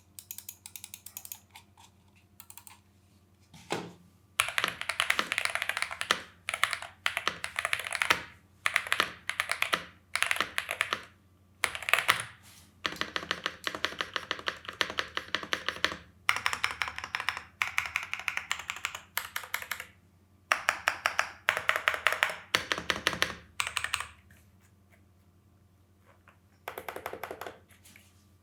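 MONKA K75 gasket-mount mechanical keyboard with factory-lubed Strawberry Jam linear switches being typed on, in quick runs of keystrokes with short pauses between them. There is a longer pause a little before the end.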